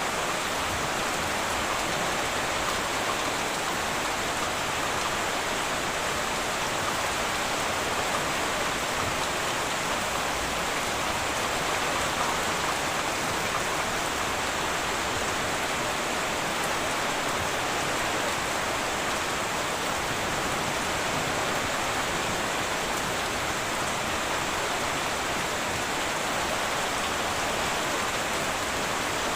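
Heavy rain falling steadily on a tin roof, a dense, even hiss of drops.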